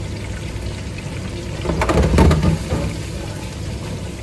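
Food deep-frying in hot oil, a steady rain-like sizzle. About two seconds in, a louder low rumble with a few knocks rises over it.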